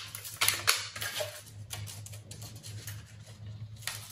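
Scissors snipping through gold foil paper as it is trimmed, with the foil crinkling: several separate crisp cuts, most of them in the first second.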